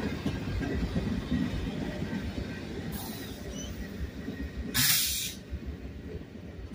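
The rear locomotive and last wagons of a freight train running past and fading away as the train leaves. A short, loud burst of hiss comes about five seconds in, with a fainter one about two seconds earlier.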